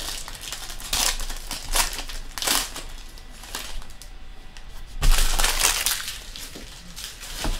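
Foil trading-card pack wrapper torn open and crumpled, crinkling in irregular bursts, loudest about five seconds in.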